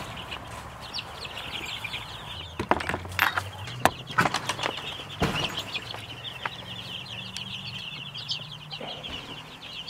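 A flock of young chickens peeping steadily in a high, rapid chatter. Several sharp knocks and rustles come between about two and a half and five seconds in, as the coop's wooden frame and plastic sheeting are handled.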